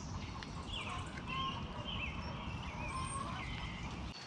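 Small birds chirping, short repeated calls, over a steady low rumble that stops abruptly at the end.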